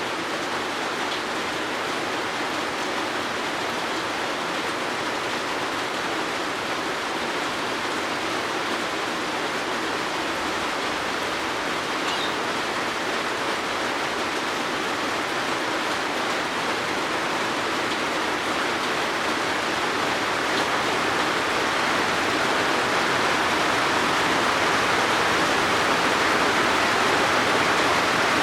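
Steady rain falling, a dense even hiss that grows gradually louder in the last third. A faint bird chirp comes through once or twice.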